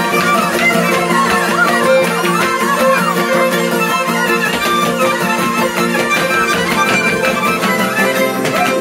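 Two ceteră (Romanian folk fiddles) playing a dance tune together, over a steady rhythmic pulse.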